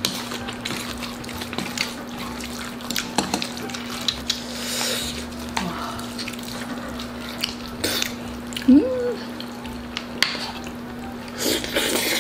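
Spoon and chopsticks clicking and scraping against a bowl as rice is mixed into jjajang (black bean) sauce, with soft wet mixing and eating sounds.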